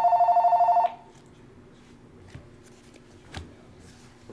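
Telephone ringing with an electronic warbling two-tone ring that cuts off about a second in, followed by a couple of faint knocks.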